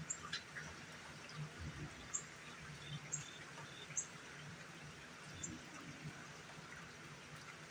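Steady light rain hiss, with a few faint, short, high-pitched chirps scattered a second or more apart.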